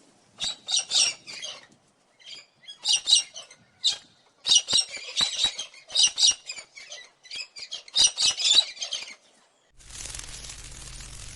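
High-pitched animal calls in short, quick clusters of squeaks and squawks. Near the end they give way to a steady hiss with a low hum.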